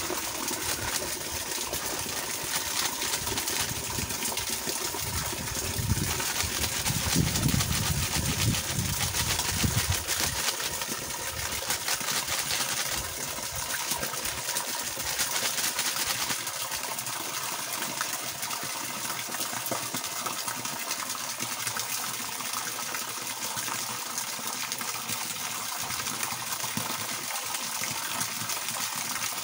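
Water from a garden hose pouring in a steady stream and splashing down. The sound is louder and fuller for a few seconds, starting about six seconds in.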